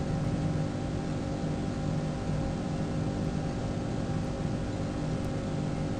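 A car engine idling with a steady hum and a hiss underneath, even and unchanging throughout.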